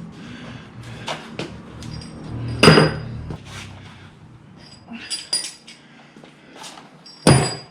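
Metallic clinks and clanks of tools and bolts being worked loose on steel, with two loud ringing knocks, about three seconds in and again near the end.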